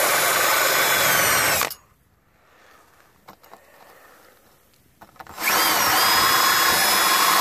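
Cordless drill spinning a small wire-brush attachment against a rusted crash-bar screw fitting, scouring out corrosion and debris. It runs in two spells with a steady whine. The first cuts off about two seconds in. After a pause of about three and a half seconds it starts again and keeps running.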